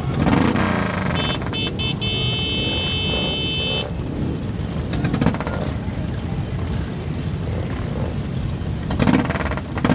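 A large group of motorcycles and three-wheeled motorcycles idling together, a dense, continuous engine rumble. A high electronic-sounding tone sounds for a couple of seconds about a second in.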